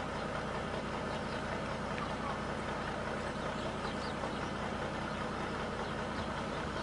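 Engine of the vehicle carrying a wall of loudspeakers idling, a steady, even low running sound with no music from the speakers.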